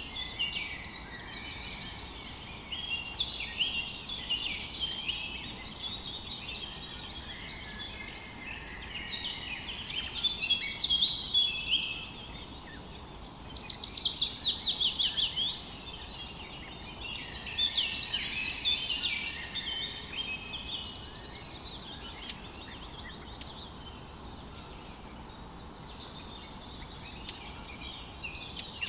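A chorus of several songbirds singing at once, with overlapping chirps and rapid trills over a faint steady background hiss. Louder bursts of trilling come about ten, fourteen and eighteen seconds in.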